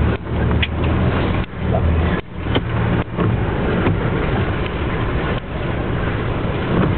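4x4 driving over a rough muddy track, heard from inside the cab: the engine runs steadily, with several brief knocks and jolts from the bumps.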